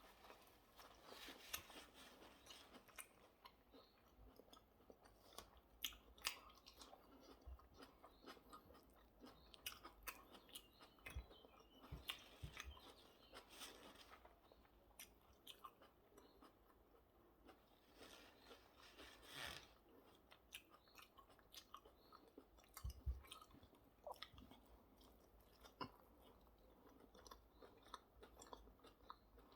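Close-up eating sounds of a hamburger and salad: chewing and crunching with many small wet clicks and crackles, and a few soft low thumps.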